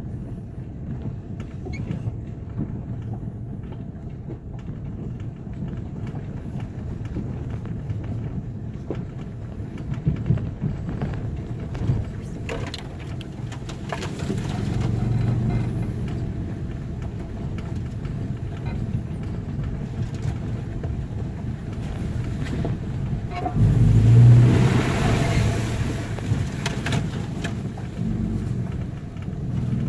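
Toyota FJ Cruiser's V6 engine running as it drives a dirt forest track, heard from inside the cab, with steady low rumble and tyre noise and a few sharp knocks. About 24 seconds in, a louder rushing surge lasts a couple of seconds.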